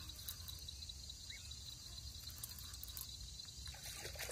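Crickets chirring in a steady high-pitched night chorus, with a low rumble underneath. Faint water sounds come in near the end.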